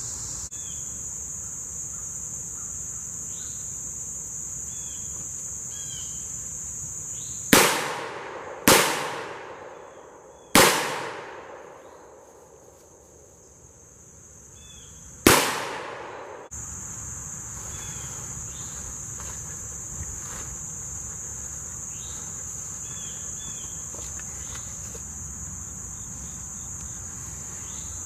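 Four shots from a stainless snub-nose revolver: two about a second apart, a third about two seconds later, and a fourth some five seconds after that, each with a short echoing tail. A steady high insect chorus runs underneath before and after the shots.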